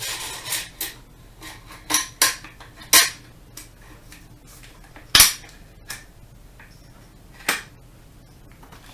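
Metal parts of a disassembled AR-15-style 9mm carbine clinking and clacking as they are handled and set down on a hard surface: a string of sharp knocks, the loudest about five seconds in.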